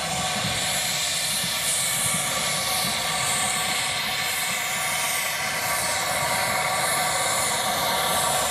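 Small steam tank locomotive hissing steadily as it moves slowly with its train, over a low rumble of the carriages rolling on the track.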